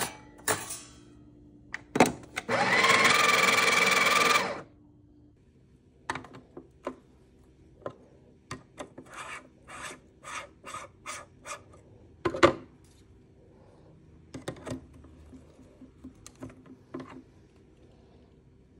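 An electric coffee grinder runs for about two seconds, its motor pitch rising slightly as it spins up. Then come a string of light metallic clicks and taps, with one sharper knock partway through, from preparing and tamping the espresso grounds in the portafilter.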